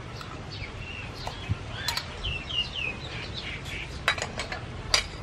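A metal spoon clinking against bowls as salt is spooned into a bowl of water: a few sharp clinks, a small cluster about four seconds in and the loudest near the end. Birds chirp in short falling notes throughout the first part.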